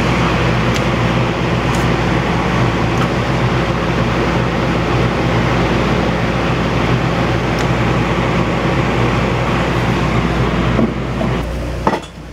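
Powder-coating spray booth running: a steady rushing noise with a low hum from the booth's exhaust fan and the air-fed powder gun as it sprays powder. It stops near the end.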